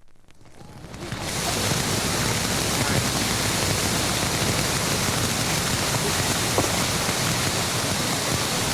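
A dense, steady rushing noise fades in over about the first second and a half, then holds level.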